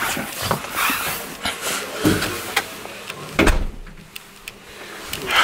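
Irregular knocks and thumps of someone walking through a doorway and onto carpeted stairs: footsteps and bumps, with two heavier thuds about two and three and a half seconds in.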